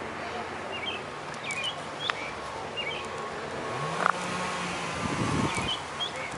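Outdoor background noise with distant traffic, and short bird chirps every second or so. A low hum, like a passing vehicle, rises in pitch about four seconds in.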